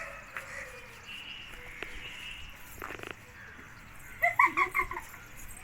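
A short burst of high-pitched laughter, several quick pulses about four seconds in.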